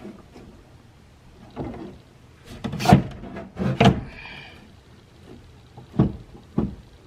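Metal window parts and hand tools being handled: a string of separate knocks and clunks, loudest about three and four seconds in, with a brief metallic ring just after, and two sharper knocks near the end.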